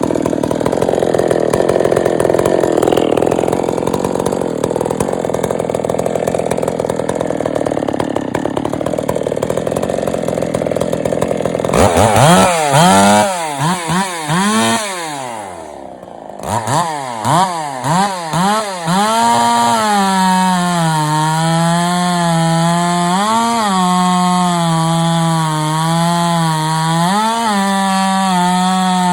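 Stihl MS 380 clone chainsaw running loud. For the first twelve seconds the sound is a dense rasp with no clear engine note, as if the saw were cutting. It is then revved up and down several times, dips briefly, and from about twenty seconds on is held at a steady high speed with a few short rises.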